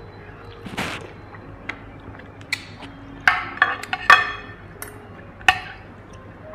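Metal fork and spoon clinking against a glass serving bowl while noodles are dished out: a run of sharp clinks, each with a short ring, most of them bunched together about three to four seconds in.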